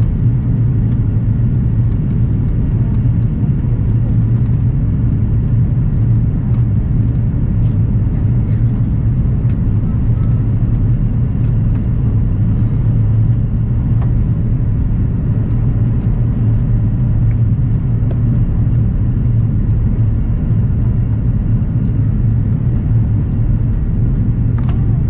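Airbus airliner cabin noise: a steady low rumble of engines and airflow, with a few faint ticks and rattles.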